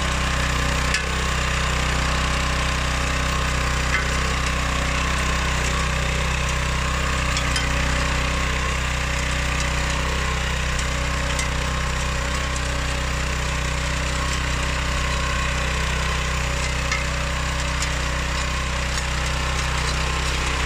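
Oleo-Mac MH 150 RK motor hoe's petrol engine running steadily at constant speed, with a few light knocks now and then.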